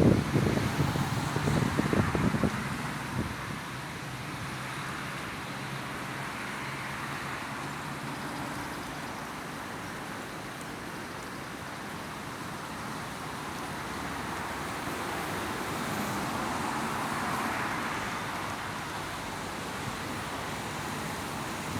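Strong wind gusting on the microphone with low buffeting rumble for the first few seconds, then a steady rushing that swells and eases again about three-quarters of the way through.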